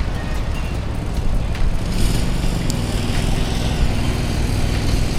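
Steady low rumble of motor vehicle traffic, with a continuous engine hum.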